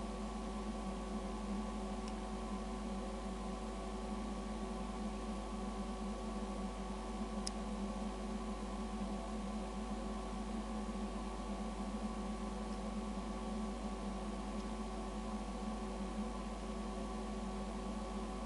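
Steady hum with several held tones, and a faint short tick about seven and a half seconds in.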